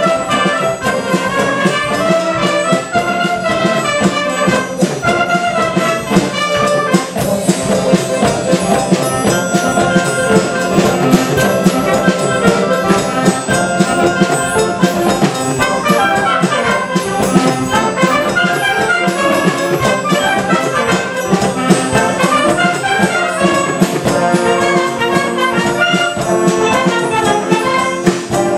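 A wind band of clarinets, flutes, saxophones, trumpets and trombones playing a mambo, with percussion keeping a steady beat.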